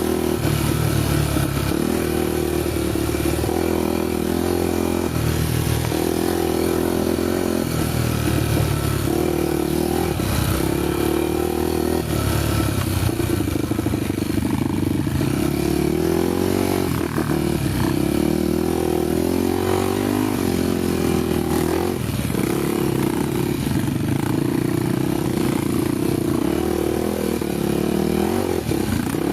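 Honda XR 250 Tornado trail motorcycle's single-cylinder engine running under way, its note rising and falling with the throttle.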